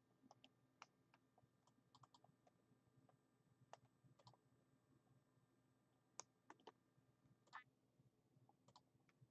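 Near silence broken by faint, scattered clicks and taps, about a dozen, none lasting more than a moment.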